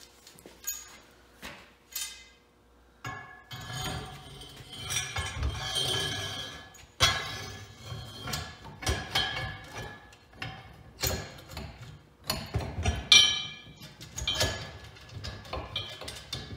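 Steel parts for the driven end of a Ford Model T drive shaft (bearing, washers, sleeve, gear and nut) clinking and knocking as they are handled and fitted by hand. The clinks come irregularly, some ringing briefly, mixed with a few duller thumps.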